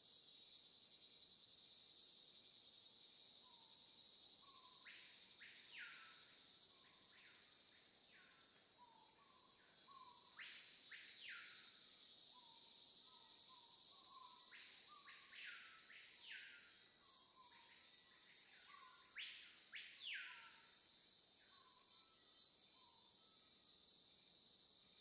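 Faint, steady high-pitched insect trilling, with a bird calling in groups of two or three short downward-sweeping notes several times, and soft low chirps in between.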